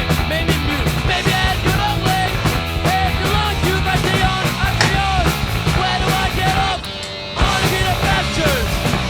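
Fast punk rock song with distorted guitars, drums and a shouted vocal, with a short drop just before the seventh second before the band comes back in.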